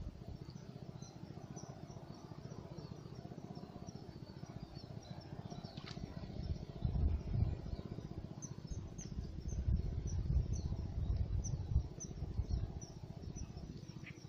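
Small birds chirping in short high notes, repeated many times, over a low rumble that comes in gusts and grows louder from about halfway through.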